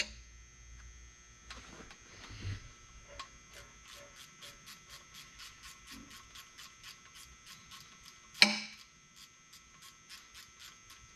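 Steady, even ticking, about three or four a second, with one loud metallic clank of a hand tool on the engine about eight and a half seconds in, during wrench work on a Cummins ISL9 diesel engine's top end.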